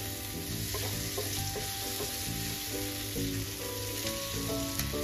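Chopped tomatoes and masala sizzling in a non-stick frying pan over a high flame, stirred with a wooden spatula, with soft background music of changing notes.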